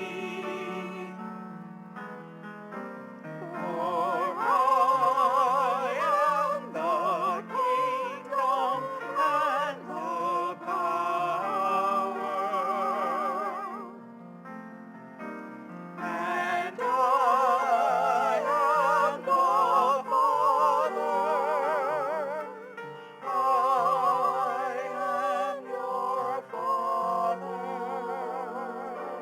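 A solo voice singing with wide vibrato over a piano accompaniment, in long phrases with a short break about halfway through.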